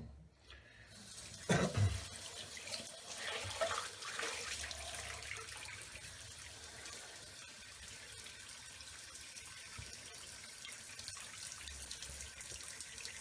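Bathroom tap running steadily into the sink while the face is rinsed after a shave, with a few louder splashes about a second and a half in.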